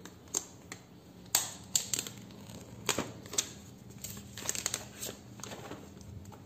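Plastic shrink-wrap seal on a new iPhone 7 box crinkling and tearing as it is broken open, with scattered sharp crackles and clicks of fingers on the wrap and cardboard, a quick cluster of them about four and a half seconds in.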